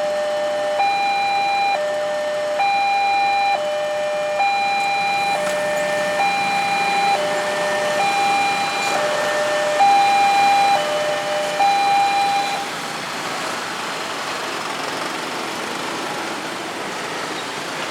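Electronic railway level-crossing warning alarm (LEN crossing system) sounding two tones in turn, a higher and a lower, each just under a second. The alarm stops about two-thirds of the way through, leaving a steady rushing noise of passing traffic.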